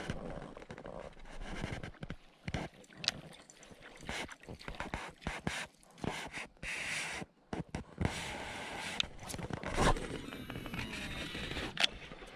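Irregular knocks, clicks and scraping from fishing gear being handled in a small boat, with the hull and tackle bumping.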